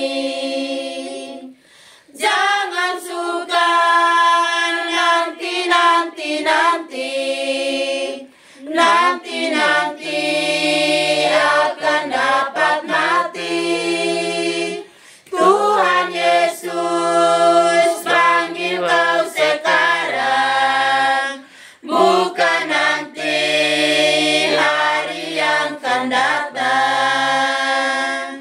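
An unaccompanied group of women singing an Indonesian hymn together in long held phrases, with short breaks for breath between them. A lower voice part sings beneath the melody through the middle of the passage.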